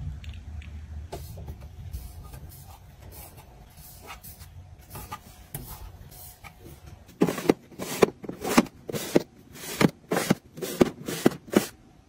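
Hard plastic items being handled in a clear acrylic storage drawer: faint low handling noise and light taps, then from a little past the middle a run of about ten sharp plastic clacks and knocks.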